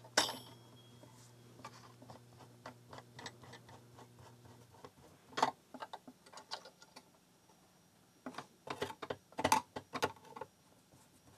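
Small irregular clicks and ticks of a screwdriver working screws into a Tandon TM-100 floppy drive's chassis, with a sharp metallic clink at the start and a run of louder clicks in the second half.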